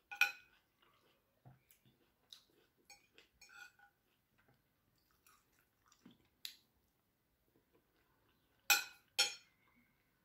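Metal fork and spoon clinking against a plate, with faint chewing: scattered soft ticks, and two sharper clinks about half a second apart near the end.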